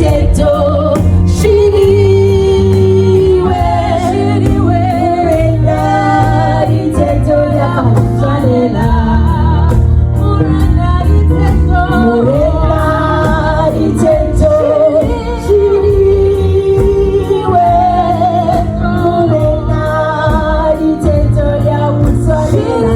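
Gospel song with singing over a strong, steady bass.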